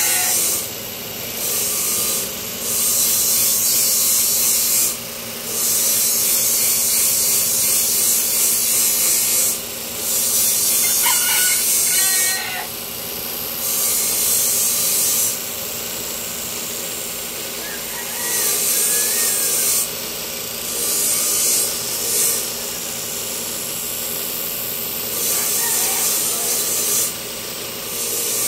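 Steel being ground in tari blade-making: a steady motor hum with a harsh scraping hiss in stretches of a few seconds, separated by short breaks as the work is lifted off and pressed on again.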